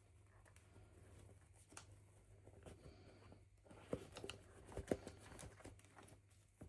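Faint handling of toy packaging and small doll pieces: scattered light clicks and taps over a low steady hum, with two sharper taps about a second apart, roughly four seconds in.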